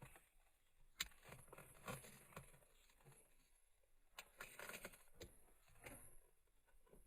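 Near silence broken by faint, scattered clicks and small knocks, the strongest about a second in and a quick cluster of them a little past the middle.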